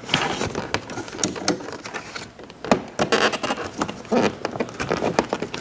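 Irregular plastic clicks, taps and rustling as a replacement interior door handle is handled and worked onto its door-latch rod.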